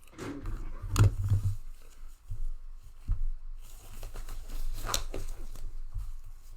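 Items being handled on a table: irregular crinkling and rustling, likely packaging, with a few sharp knocks, the loudest about a second in.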